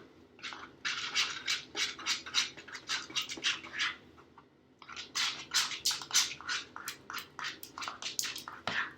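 Glue-and-contact-solution slime being stirred with a spoon in a bowl: quick, wet, scratchy strokes several times a second, pausing briefly about four seconds in. The mixture is not yet setting up into slime.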